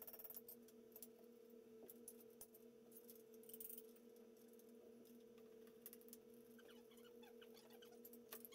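Near silence: a faint steady hum with scattered faint small metallic clicks and clinks, a little busier near the end.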